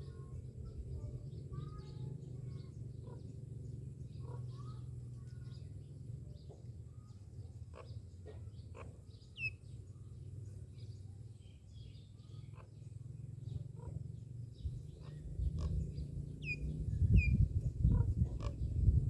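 Myna birds calling with scattered short chirps, clicks and quick falling whistles, over a steady low rumble that grows louder near the end.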